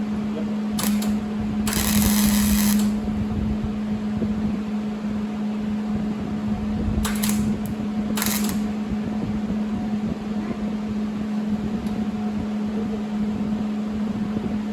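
Electric welder laying short tack welds on steel: four brief bursts of arc crackle, the longest about a second, over a steady low hum.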